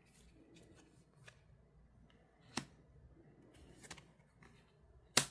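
Trading card packs and cards being handled and opened: faint rustling and small clicks, with a sharper click about two and a half seconds in and another just before the end.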